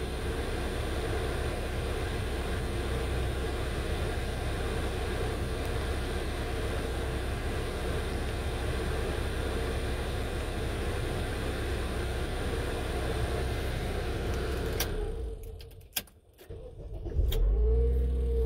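2008 Honda Accord engine idling steadily, then shut off about fifteen seconds in. A few sharp clicks follow in the quiet, and the engine starts up again near the end.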